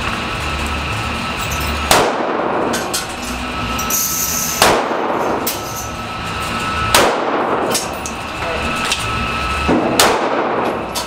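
Glock .40 pistol fired four times at a slow, aimed pace, a shot every two to three seconds, each crack ringing briefly off the walls of the indoor range, over a steady background hum.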